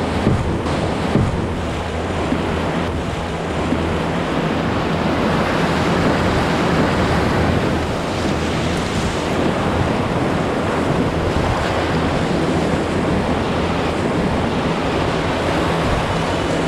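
Rushing whitewater of a class two river rapid in spring flood, heard from a canoe running through it: a steady, loud rush of water.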